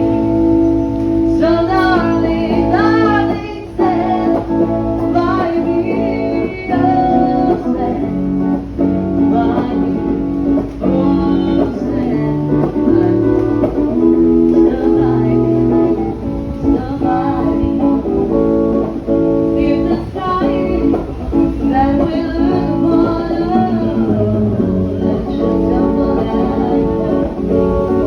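Background music: a song with plucked guitar and a singing voice.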